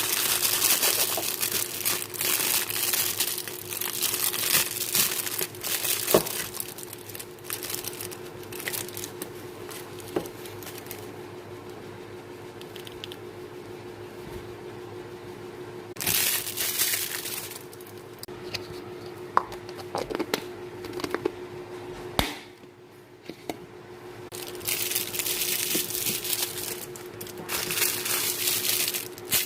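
Packaging being crinkled and torn open in several rustling bursts, with a few sharp clicks in between, over a steady faint hum.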